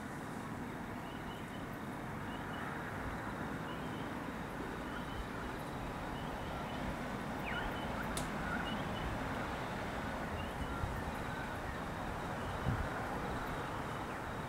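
Steady outdoor storm ambience, a low rumble and hiss, with a bird giving short chirps every second or so.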